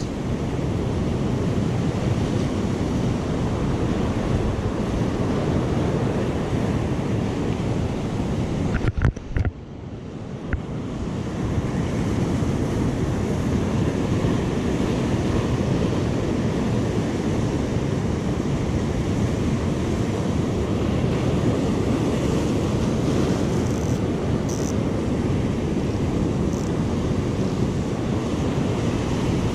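Ocean surf breaking and washing over shoreline rocks, a steady loud rush with wind buffeting the microphone. The noise dips briefly about nine seconds in, then builds back up.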